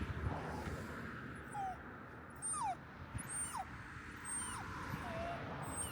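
A dog whining: a string of short, high whimpers, most sliding down in pitch, about half a dozen.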